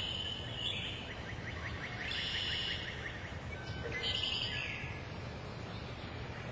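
Forest ambience: birds chirping in short bursts, with a fast, even ticking trill underneath.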